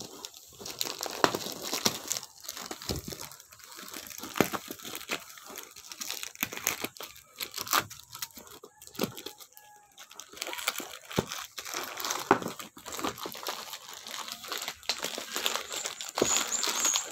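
Plastic courier pouch crinkling and crackling irregularly as hands handle it and tear it open.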